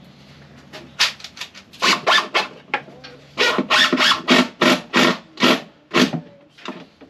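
A run of sharp knocks on the wooden nesting box being built, a few at first and then about two a second for several seconds.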